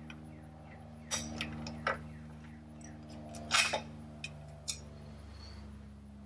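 Sporadic metal clicks and clinks of a ratchet and wrench working the bolts of a motorcycle's license plate bracket, the loudest about three and a half seconds in, over a steady low hum.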